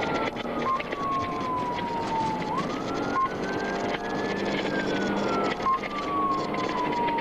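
Police car siren on a slow wail, gliding down and up in pitch over several seconds, heard from inside the car over steady engine and road noise. A short beep sounds about every two and a half seconds.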